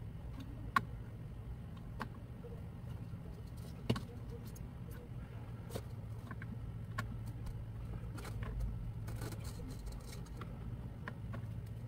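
Scattered small clicks and knocks from handling parts and tools on a workbench, over a steady low hum.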